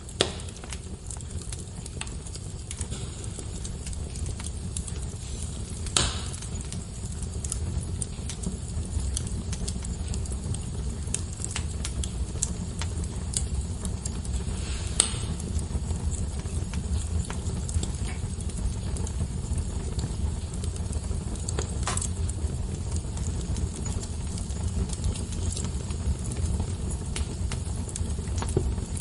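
Fire burning in a fireplace: a steady low rumble under constant small crackles, with a few louder sharp pops scattered through.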